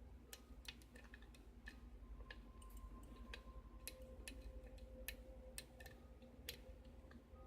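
Faint, irregular light clicks and ticks of a lock pick working the pins of a six-pin pin-tumbler challenge lock held under light tension.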